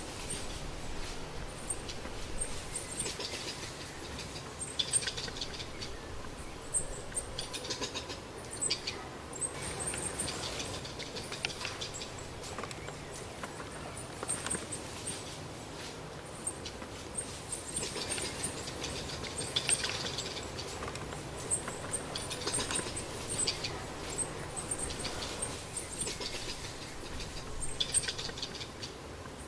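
Small animals giving many short, very high-pitched chirps over and over, mixed with bouts of scratching and rustling.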